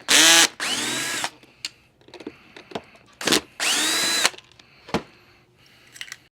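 Power drill/driver backing out two screws: two bursts of its motor, each about a second long and about three seconds apart, spinning up and winding down, with a few small clicks in between.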